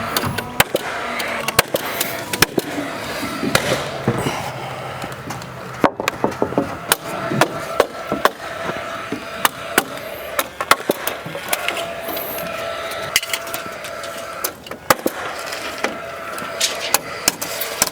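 Sharp, irregular knocks of roof trusses being nailed and knocked into place, over a steady mechanical hum.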